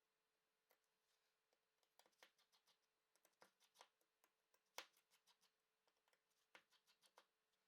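Near silence with faint, scattered small clicks and taps of tools working on an opened smartphone, the sharpest about five seconds in.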